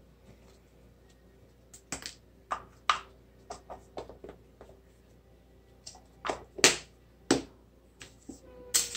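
Plastic blind-bag packaging being handled and opened by hand: scattered short crinkles and taps at irregular intervals.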